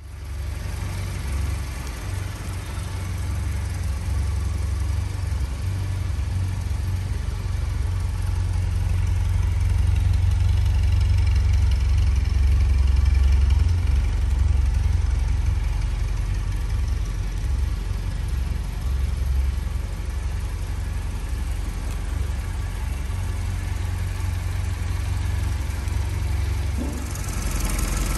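1977 Mini 1000 Automatic's 998 cc A-series four-cylinder engine idling steadily.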